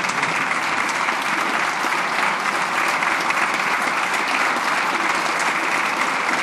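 Standing ovation: a large roomful of people clapping steadily and densely.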